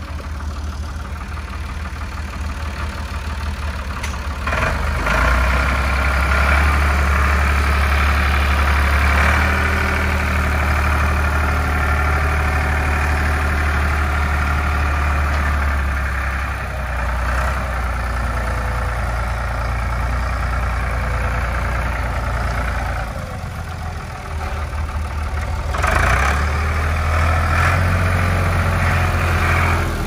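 Farm tractor engine running steadily, speeding up about four seconds in and holding there for about ten seconds, easing back, then speeding up again near the end as the tractor is driven and its front loader worked.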